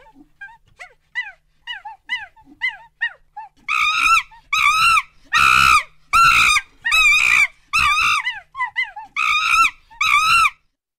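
Monkey calling over and over: short, high, falling chirps at first, then from about four seconds in a run of louder, longer arched screams, each rising and falling in pitch, about nine of them.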